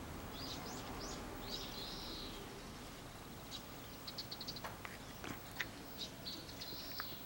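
Small birds chirping off and on, with a quick run of high ticks about four seconds in. A few short sharp clicks come in the second half.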